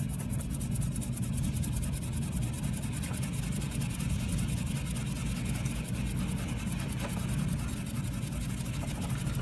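Coarse Scotch-Brite abrasive pad rubbed quickly back and forth over a grill's stainless-steel front panel to scour off weld marks: a fast, even scratching. Under it runs a steady low hum.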